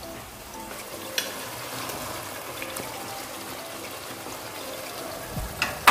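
Masala gravy sizzling and simmering in a pot as boiled eggs are tipped in from a glass bowl, with a few light clicks and a sharper knock near the end.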